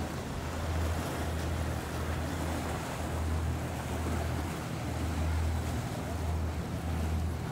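Sportfishing boat running fast through choppy water: a low engine drone that swells and fades, over splashing wake and wind noise.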